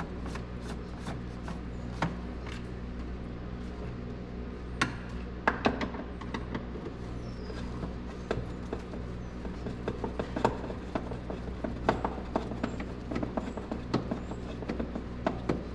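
Screwdriver working the fasteners on a plastic airbox lid, giving a scattering of sharp clicks and rattles that bunch up about five seconds in and again through the last third, over a steady low hum.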